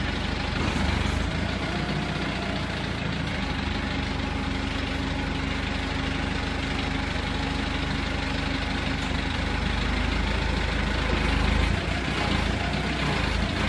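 Wrecker truck's engine idling steadily, getting slightly louder for a moment a couple of seconds before the end.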